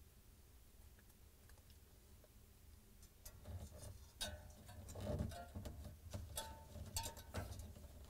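Nylon zip tie and wire harness being handled as the tie is threaded and pulled around the sensor wires: small scattered plastic clicks and rustles that begin about three seconds in.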